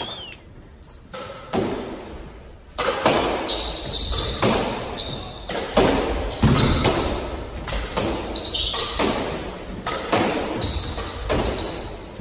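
Squash doubles rally: the ball is struck by racquets and smacks off the court walls over and over, roughly once or twice a second, echoing in the court, with short high squeaks of sneakers on the hardwood floor.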